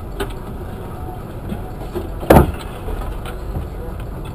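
A single loud crash about two seconds in, with a short ringing tail, as a power-line post and broken traffic-light parts come down, over a steady low rumble.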